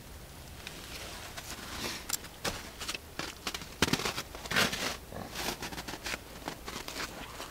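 Footsteps crunching on icy, snow-covered ground, an uneven run of sharp crunches with a few louder ones in the middle.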